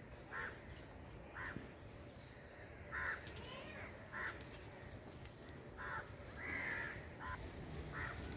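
Crows cawing: a string of short calls about once a second, with one longer call about six and a half seconds in.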